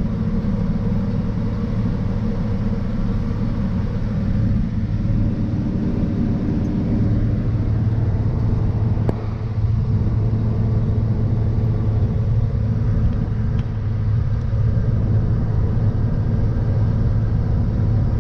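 Ford F600 dump truck's gasoline engine running steadily at road speed, with road noise, heard from inside the cab. The drone dips briefly about nine seconds in.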